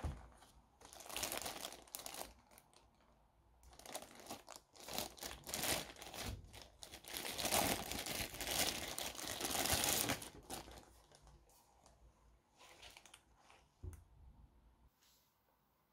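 Thin clear plastic bag crinkling in irregular bursts as a portable CD player is worked out of it, loudest a little past halfway. The crinkling then thins to a few light handling noises and a single click near the end.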